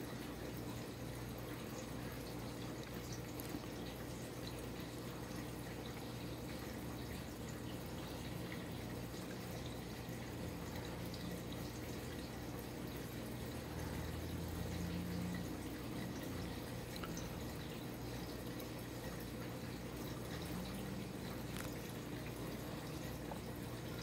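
Crown 52-inch ceiling fan running at speed: a steady low motor hum under the soft rush of the spinning blades, with faint scattered ticks. The hum swells briefly about halfway through.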